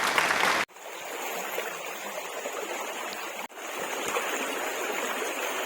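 Creek water running, a steady rushing. It is louder for the first moment and breaks off sharply twice, about a second in and past the middle.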